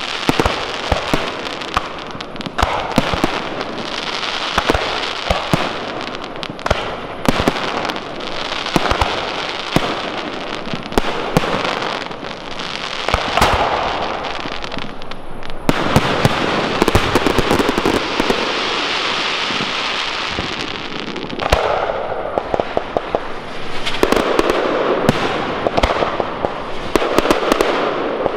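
Large fireworks display: aerial shells bursting one after another, loud bangs layered over continuous rapid crackling and hissing, with no pause.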